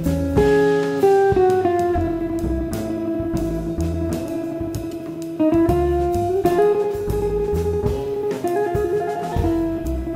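Background music: an instrumental piece led by a guitar melody over bass and drums.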